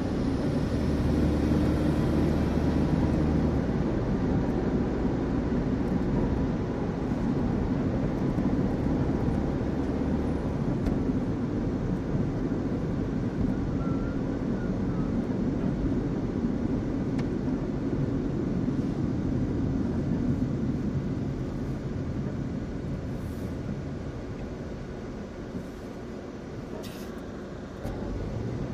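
Low, steady road and engine rumble inside a moving car in city traffic, easing off late on as the car slows in a queue of traffic.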